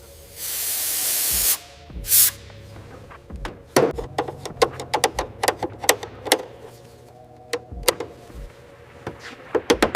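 A hiss of spray lasting about a second, a shorter second hiss, then a run of irregular light clicks and knocks from hand work on parts.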